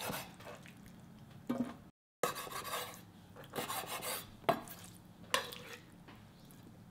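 Chef's knife cutting squid tentacles on a wooden cutting board: a handful of irregularly spaced knife strikes on the board. The sound drops out completely for a moment about two seconds in.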